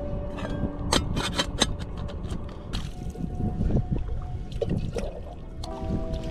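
Metal camping pots and lids clinking as a nested cook set is taken apart. About three seconds in, a small camping kettle is dipped into lake water and lifted out, with water splashing and draining from it.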